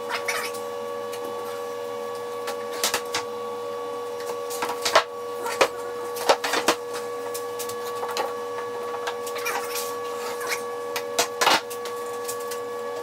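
Irregular knocks and short clatters of wooden cabinet parts being handled and set into place during assembly, over a steady hum.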